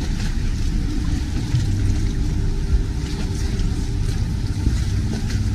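Steady low rumble of motorboat engines on the canal.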